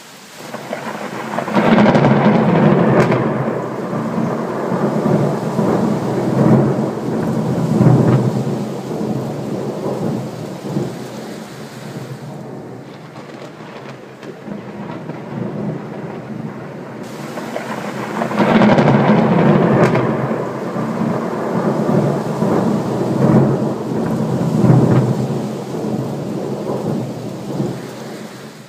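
Thunder rumbling in two long rolls, one starting about a second and a half in and fading over several seconds, the second swelling up past halfway, over steady rain.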